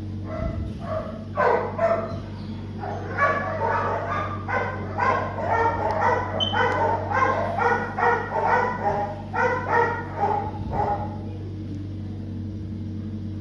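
A dog barking over and over, a few barks a second, from about three seconds in until about eleven seconds, with a few single barks before that. A steady low hum runs underneath.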